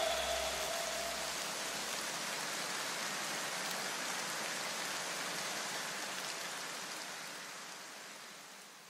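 Parts-washer solvent running from the hose nozzle and splashing over a cylinder head into the tank, a steady hiss that fades out near the end.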